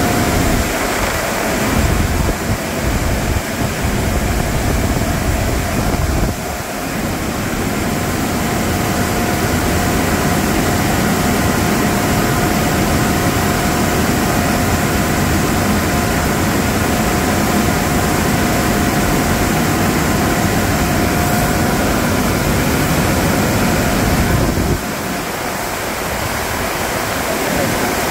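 Loud, steady rushing of water and car-wash machinery while a garden hose flushes water through a tire-shine applicator's manifold lines and out of its nozzles. A faint steady whine runs through most of it and stops about six seconds before the end.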